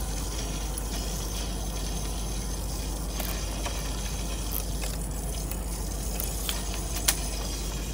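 Steady rushing noise with a low hum, from the equipment around the valve, with a few faint metal clicks from parts of the actuator being handled.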